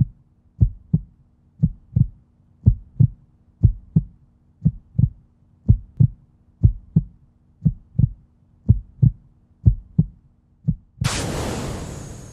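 Heartbeat sound effect: a slow double thump, about once a second, over a faint steady low hum. About eleven seconds in it gives way to a sudden loud hissing crash that fades away.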